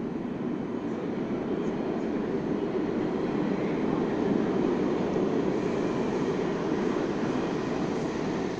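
New York City subway G train arriving on the far track of an underground station. Its wheels on the rails make a steady rumble that grows louder over the first few seconds as the train nears.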